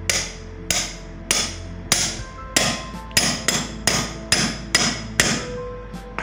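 Hammer striking a metal driving sleeve, about a dozen sharp blows at roughly two a second, each leaving a short ring. The blows drive a new 6202 ball bearing onto an air cooler fan motor's rotor shaft, which is a tight fit.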